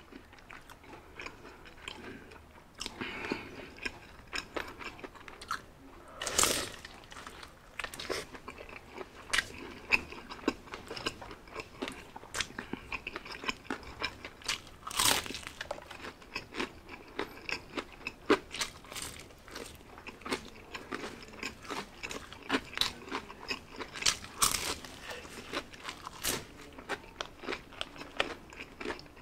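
Close-up bites and chewing of crispy fried chicken dipped in gravy: a steady run of small crunches and chewing, with three louder crunching bites spread through.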